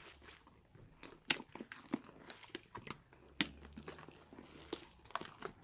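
Hands squeezing and stretching a large mass of pink slime, giving irregular sharp wet clicks and pops, the loudest about a second in and about halfway through.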